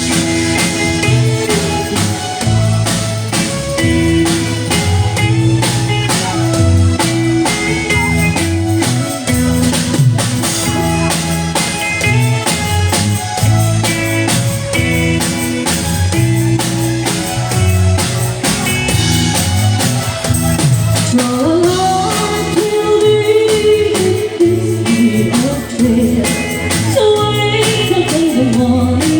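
Live band music: drums, bass and guitar playing a waltz with a steady beat, and a gliding sung melody coming in about two-thirds of the way through.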